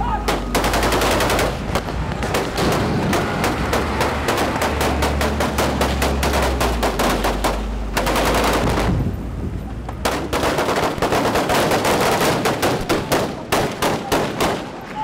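Close, sustained automatic rifle fire from Kalashnikov-type assault rifles in a street firefight: long strings of rapid shots, easing off for about two seconds past the middle, then heavy again.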